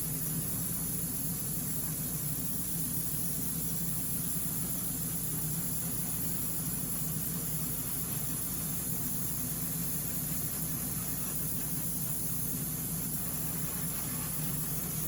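Paint spray gun hissing steadily as light coats of paint go onto a diecast toy body, with a low hum underneath.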